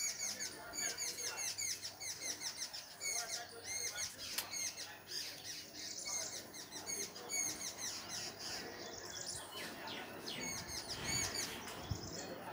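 Small birds chirping in a dense, continuous chatter of short high chirps repeated several times a second, with a low rumble near the end.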